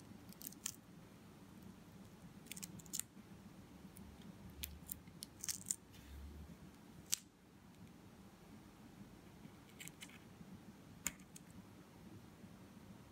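Faint, scattered crackles and clicks of thin paperboard strips and masking tape being pressed, handled and peeled off a cutting mat, over quiet room tone.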